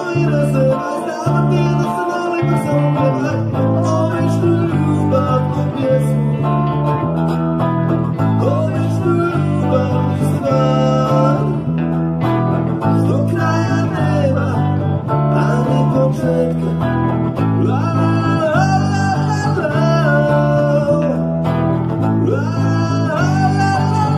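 Rock song played by a band: a male lead vocal over electric guitars and an electric bass guitar.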